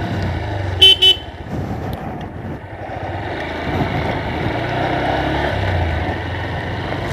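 A horn beeps twice, short and sharp, about a second in, over the single-cylinder engine of a Honda CB Hornet 160R running as the motorcycle rides along. The engine and road noise grow somewhat louder from about four seconds in.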